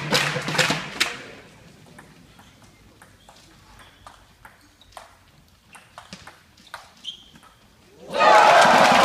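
Rhythmic crowd clapping that dies away in the first second, then a table tennis rally: the ball's sharp clicks off bats and table, several a second. Near the end the crowd cheers loudly as the point is won.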